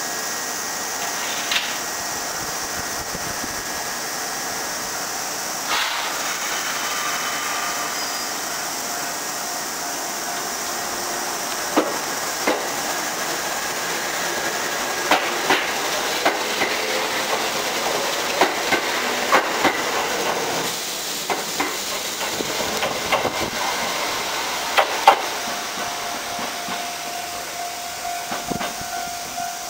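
Kintetsu 8400-series three-car electric train pulling away and passing close by, its wheels clicking sharply over rail joints as the cars go past, then fading as it runs off down the line.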